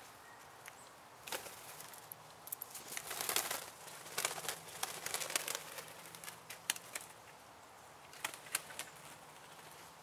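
Blue jays' wings flapping as they take off from a ground feeding spot, in several flurries over the first half or so, among scattered sharp clicks and rustles.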